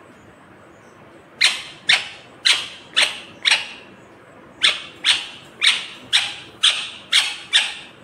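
Rose-ringed (Indian ringneck) parakeet giving a run of sharp, shrill calls at about two a second: five in a row, a brief pause, then seven more.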